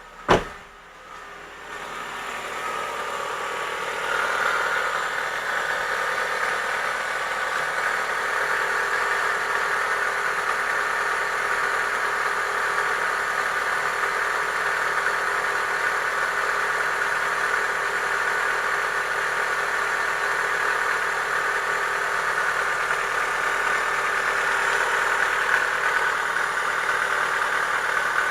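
A sharp click just after the start, then the Chevrolet Lacetti 1.6's four-cylinder petrol engine idling steadily, growing louder over the first few seconds, with the engine knock that was cured by boring the cylinder block and replacing the pistons and rings: a sign of worn cylinders and pistons.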